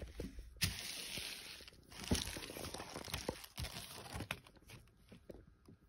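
Rustling and crinkling as a mesh basketball jersey is handled and moved about, with scattered clicks and light knocks. The rustle is strongest from about half a second in until past three seconds, then drops to occasional clicks.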